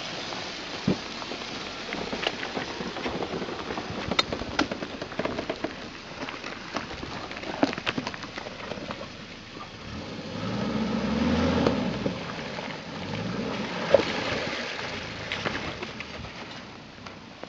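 Suzuki Jimny off-roader crawling close by through brush and ruts: crackling and snapping of twigs and dirt under the tyres and body, with the engine revving up briefly about ten seconds in and again near fourteen seconds.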